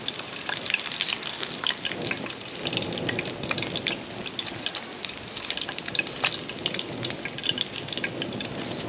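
Beer-battered whiting fillets deep-frying in a pan of hot oil: a steady sizzle with frequent sharp crackles and pops.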